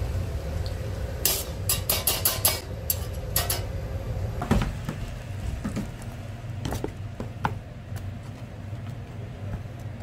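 Metal cooking tools clinking and tapping against a metal wire rack as hotteok are set on it: a quick run of clicks in the first few seconds, then a few single taps. A steady low hum runs underneath.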